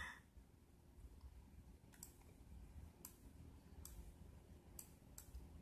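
Five faint computer clicks, spaced roughly a second apart, stepping the street-view image forward frame by frame. A short breath right at the start.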